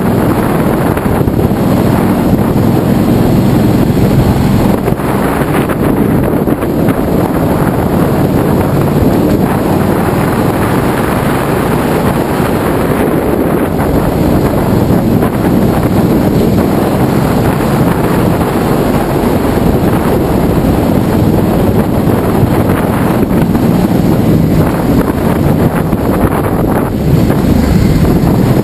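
Wind noise rushing over the microphone, with a Ducati Multistrada's V-twin engine running underneath at low speed. The noise is steady and loud.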